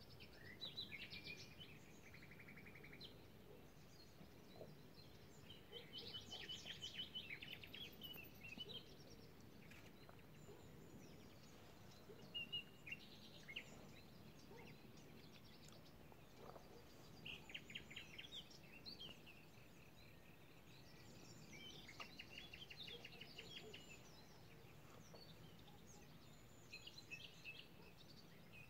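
Songbirds singing faintly in short phrases of rapid trilled notes, a phrase every few seconds, over a steady low background hiss.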